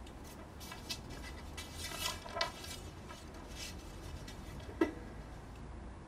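Faint, irregular rustles and small clicks, with one sharper click near the end, over a steady low hiss.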